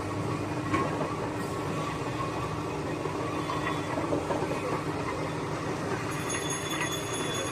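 Machinery running steadily: a continuous mechanical noise with a faint steady hum.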